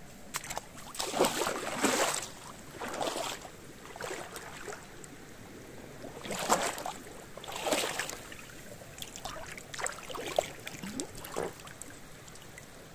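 Water splashing and sloshing in a series of irregular bursts, each about half a second to a second long.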